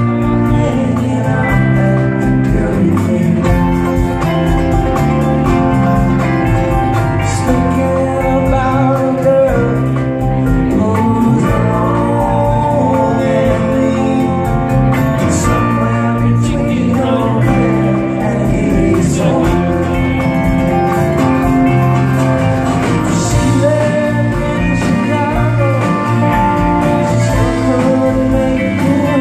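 Live band playing a song: a man singing over acoustic and electric guitars, drums and keyboards.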